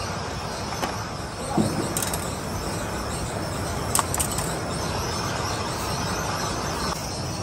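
Steady background rumble and hiss, with a few light clicks and taps from handling a bundle of wire leads with metal ring terminals.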